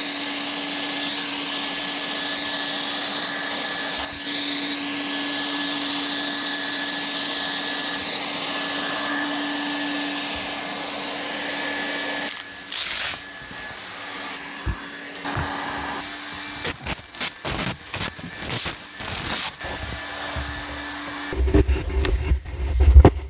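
Hot-air plastic welding gun's blower running steadily with a faint whine while welding blue polypropylene filler rod around the base of a tank. About halfway through the blowing lets up and the gun keeps running more quietly under scattered clatter and knocks, with heavy thumps near the end.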